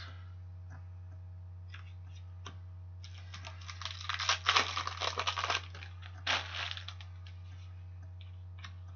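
Hockey trading cards being flicked through and slid against each other in the hands. There are scattered light clicks, then a run of quick papery rasps and flicks for a couple of seconds starting about three seconds in, and one more short swipe a little later, all over a steady low hum.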